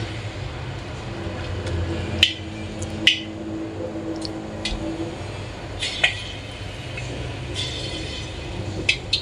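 Balls of soft yeast dough (luqaimat) dropped one by one into hot oil in a wok, the oil sizzling and bubbling around them. A few sharp clicks stand out over the sizzle, twice in the first few seconds, once near the middle and once near the end.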